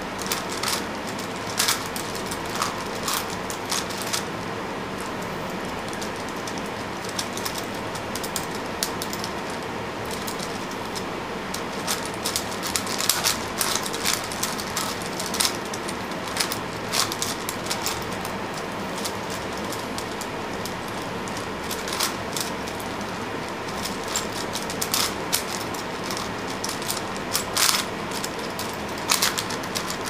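Plastic 5x5 Rubik's cube being turned by hand, its layers clicking and rattling in quick irregular runs over a steady background hiss.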